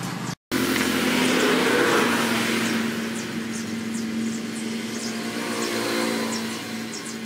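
An engine running with a steady hum. It cuts out for a split second near the start, then comes back and slowly fades.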